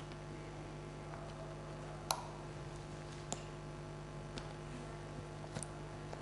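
A few faint clicks and taps from a diving mask and its silicone strap being handled as it is fitted over the head, over a steady low electrical hum.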